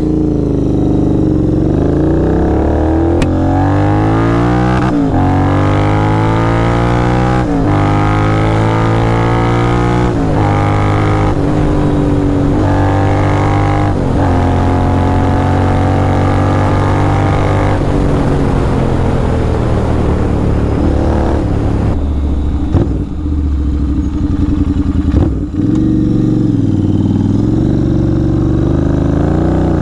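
Stage 2 tuned Royal Enfield Continental GT 650's 648 cc parallel-twin accelerating up through the gears. The note rises and then drops at each of about four shifts before holding a steady cruise. It then eases off with a falling note and picks up again near the end.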